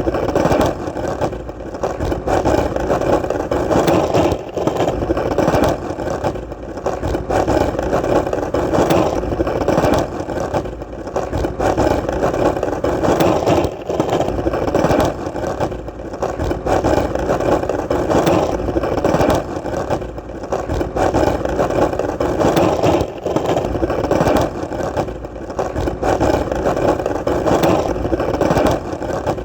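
Skateboard wheels rolling steadily over hard ground: a continuous rolling noise with small clicks throughout and brief dips in level now and then.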